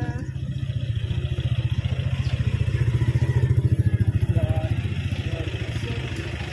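Motor vehicle engine running with a steady low pulsing rumble that grows louder toward the middle and then eases off.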